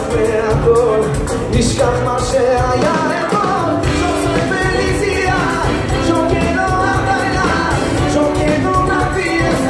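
A live band playing in a large hall, a male singer over drums, keyboards and horns with a steady beat.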